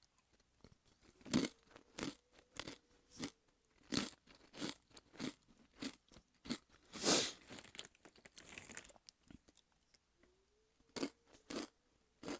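Takis rolled tortilla chips being bitten and chewed close to the microphone: a series of sharp, dry crunches with short pauses, the loudest about seven seconds in.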